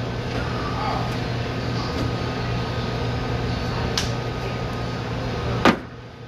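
Steady hum of kitchen equipment with a few light clicks as seasonings are handled. Near the end comes a sharp knock as a stainless steel seasoning shaker is set down on the steel counter, and the background hum drops in level just after.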